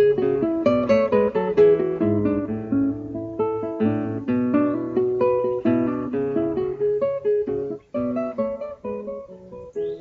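Background music: an acoustic guitar playing a run of plucked notes over chords, with a short break about eight seconds in.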